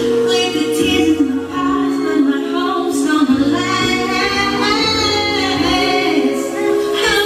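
A song playing: singing over instrumental accompaniment with a sustained bass line.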